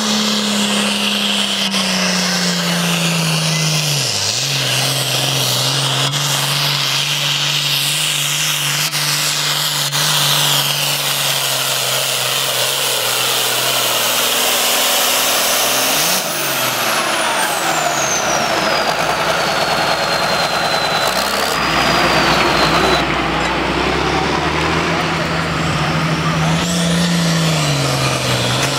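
Turbocharged diesel pulling tractors running hard under load while pulling a weight sled. The engine note holds steady and dips briefly about four seconds in and again near the end. A high whistle slides down in pitch in the second half.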